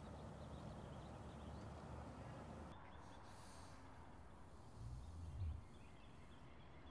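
Faint outdoor ambience: a steady low rumble with faint bird chirps, and a brief low thump about five seconds in.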